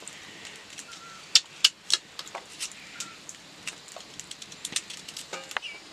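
Irregular sharp clicks and knocks, the three loudest close together about one and a half seconds in, with a brief pitched call near the end.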